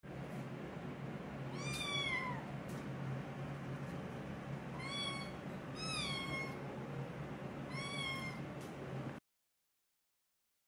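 A kitten meowing four times, short and high, each call falling in pitch at its end, over a steady low hum. The sound cuts off suddenly about nine seconds in.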